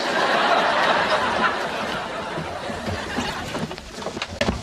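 Studio audience laughing, starting suddenly and dying away over about four seconds, with a few light knocks near the end.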